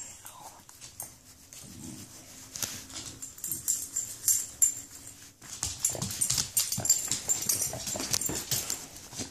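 Dog making short low whines and grumbles while being handled, with scratchy rustling and clicking of fur and hands rubbing close to the microphone, heaviest in the second half.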